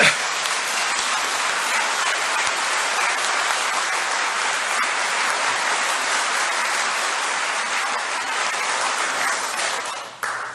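Audience applauding, steady throughout and dying away near the end.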